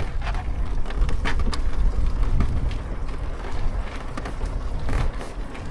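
Wind buffeting and a rolling, rattling motorcycle as a dead Yamaha R25 coasts downhill in gear for a bump start, with scattered clicks from the drivetrain. The engine does not catch.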